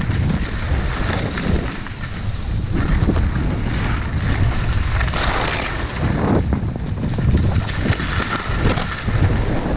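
Wind buffeting the microphone of a skier's helmet camera during a fast downhill run, with the hiss and scrape of skis over snow swelling and fading with the turns.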